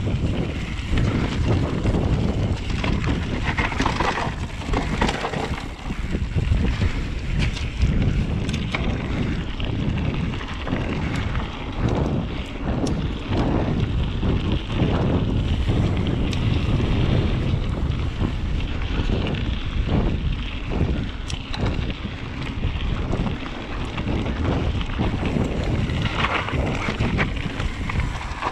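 Heavy wind buffeting the microphone as a Vitus Sommet mountain bike rides down a trail, with scattered clicks and knocks from the bike over rough ground.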